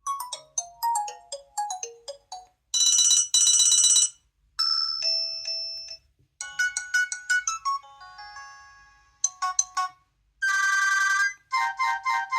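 A Nokia 215 4G phone playing a series of its built-in ringtones back to back, a second or two each: a short descending melody, a buzzy double ring, chimes, a plinky melody, and another buzzy ring followed by a pulsing ring near the end.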